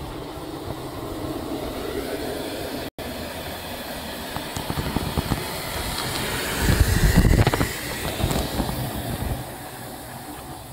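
5-inch gauge live-steam model of an LMS Jubilee locomotive running on a miniature railway: wheels clicking over the rail joints and a hiss of steam, growing loudest about two-thirds of the way through. The sound drops out for an instant about three seconds in.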